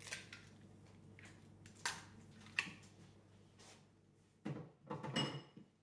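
Faint kitchen handling noises: a few light clicks and taps, then a short cluster of knocks about a second before the end.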